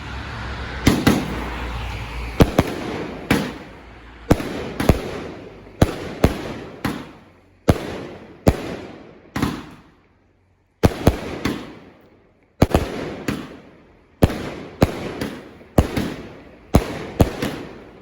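Fireworks going off in rapid succession: a long run of sharp bangs, each trailing off, roughly one to two a second, with a brief lull about ten seconds in.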